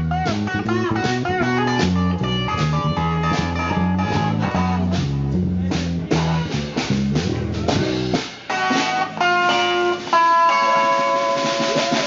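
A small band playing live: electric guitar over a bass guitar line, with snare drum strokes keeping a steady beat. About eight seconds in the band cuts off and different music with long held notes takes over.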